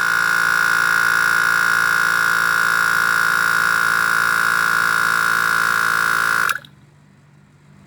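Portable car tyre compressor running with a steady buzzing drone, inflating an underinflated tyre; it cuts off abruptly about six and a half seconds in.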